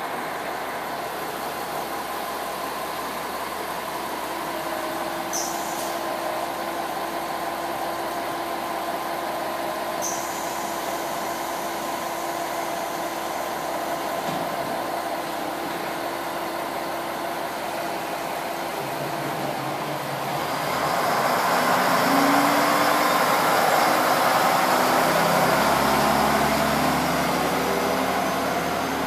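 Diesel engine of a KiHa 47 railcar idling steadily at the platform. About 20 s in the engine revs up and gets louder, its pitch stepping upward as the train pulls away.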